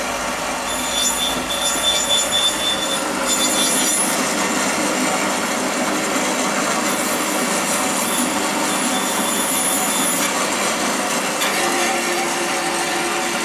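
Woodworking bandsaw running steadily while green beans are fed into the blade and sliced into short pieces. A higher rasping hiss comes in while the blade cuts, from about a second in to four seconds, and again from about seven to ten seconds.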